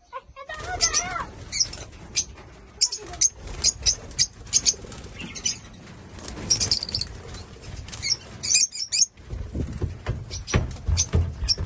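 A small bird chirping in many short, high bursts, with wings fluttering and rustling close by.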